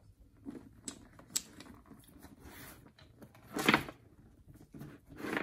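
Small purse items being handled on a hard surface: scattered light clicks and taps, with a louder clatter a little under four seconds in and a shorter one near the end.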